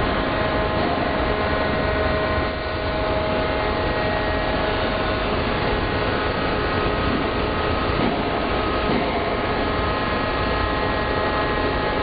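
Steady drone of heavy forging machinery, the manipulator and hydraulic plant running, with several constant whining tones over a noisy rumble and no hammer blows.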